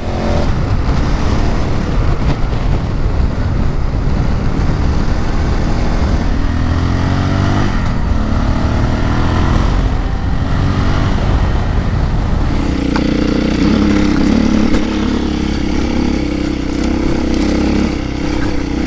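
Motorcycle engines running under way, heard from on board with wind rush, in a run of clips from different adventure and enduro bikes. The engine pitch rises once near the middle, and about two-thirds through a different, steadier engine note takes over.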